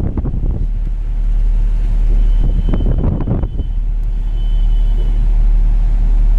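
Steady low rumble of a Symphony Touch 110 desert air cooler's fan running, its airflow blowing onto the microphone. About 3 s in and again about 5 s in, the cooler answers the remote with short electronic tones.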